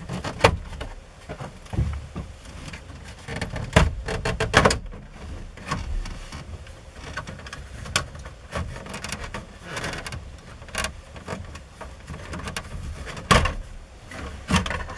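Plastic dash trim on a Ford F-150 being pried and pulled loose by hand: irregular clicks, snaps and knocks as the clips release and the panel shifts. The loudest knocks come a little under halfway through and again near the end.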